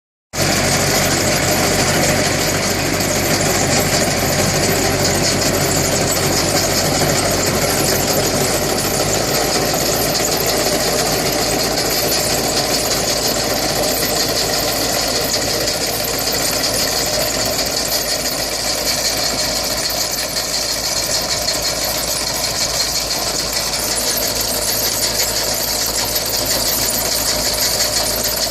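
Tractor engine running steadily under load while its mounted Bulls BG-1500H root-crop harvester digs and lifts garlic, with a fast, rhythmic mechanical clatter from the harvester over the engine. The low engine tone shifts about nine seconds in.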